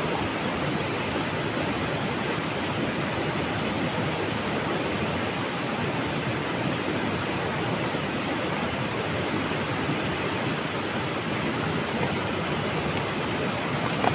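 River water rushing steadily over rocks, an even unbroken roar.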